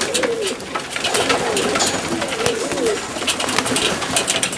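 Macedonian Donek pigeons cooing, several wavering coos about once a second, over scattered sharp clicks and scuffles from the flock.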